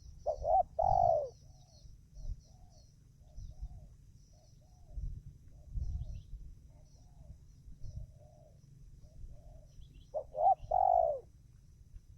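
Spotted dove (tekukur) cooing, with two loud calls, one near the start and one near the end, and fainter coos in between. Faint high chirping of small birds and a low wind rumble lie underneath.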